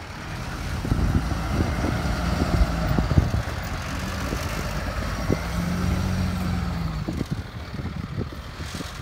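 DAF fire engine's diesel engine running as the truck drives slowly past close by and onto the grass, with scattered low knocks. It grows louder in the first second and eases off near the end as the truck moves away.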